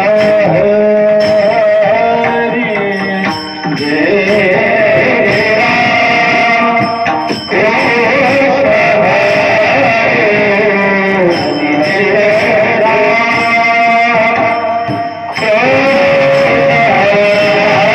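Marathi devotional bhajan: a male singer holding long, ornamented sung lines, accompanied by pakhawaj drum strokes.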